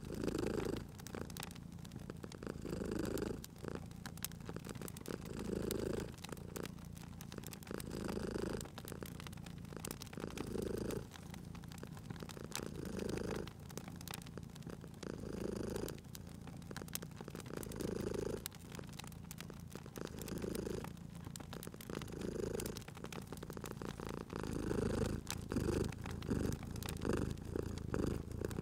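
Domestic cat purring, swelling and easing about every two and a half seconds with its breathing, over a wood fire crackling with small sharp pops.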